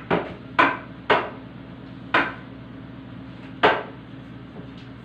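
Five sharp hard-plastic knocks and clacks at uneven intervals from a cleaning tool being handled.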